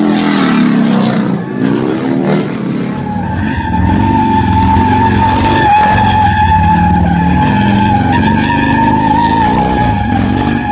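Harley-Davidson V-twin motorcycle engine revving, its pitch sliding up and down, then from about three seconds in a steady, high-pitched tire squeal over the running engine as the rear tire spins in a burnout.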